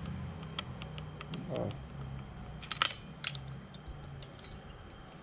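Small metal clicks and taps from a 25cc two-stroke engine's parts being handled on a workbench as its cylinder is slid off the piston, with one sharper click about three seconds in. A steady low hum runs underneath.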